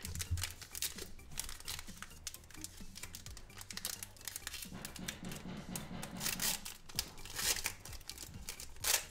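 Foil trading-card pack wrapper being torn open and crinkled by gloved hands: a run of crackles and short rips, louder a few times in the second half.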